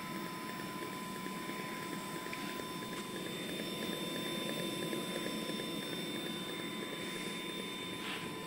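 Swagelok M200 orbital TIG welder running a test weld: a steady whir and hiss from the machine and weld head, with a thin, constant high whine over it.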